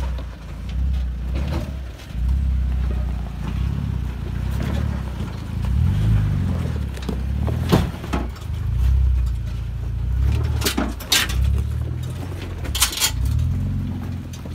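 Third-generation Toyota Tacoma crawling slowly over rocks, its engine rumbling at low revs and rising and falling with the throttle. Several sharp cracks and crunches of rock under the tyres come about halfway through and again near the end.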